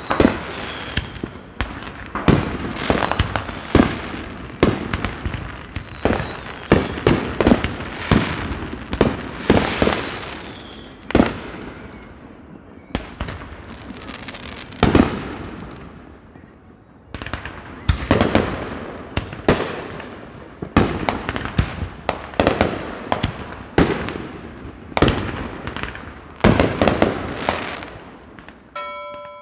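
Fireworks going off in a dense barrage of overlapping bangs and crackles, thinning out for a few seconds around the middle before building back up. A short bell-like ding sounds at the very end.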